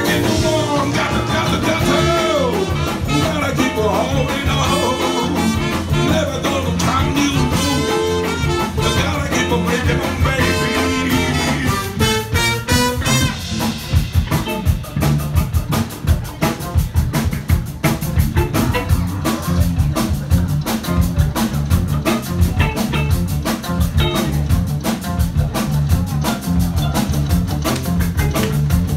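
Live band playing an upbeat number with drum kit and bass. A melody line bends over the band in the first half, then about halfway through it settles into a steady, driving drum beat.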